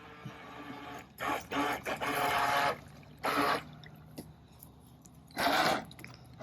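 A small boat motor's steady whine fades out about a second in, followed by several short bursts of splashing water.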